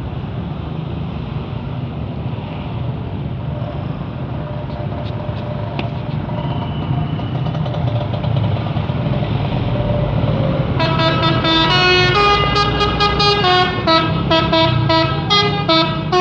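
A low, steady vehicle rumble, then about eleven seconds in a bus's 'telolet' musical horn plays a quick tune of chord-like notes that step up and down, running on to near the end.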